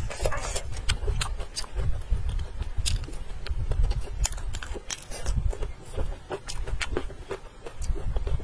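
Close-miked chewing and wet mouth smacks of a person eating, with irregular sharp clicks several times a second.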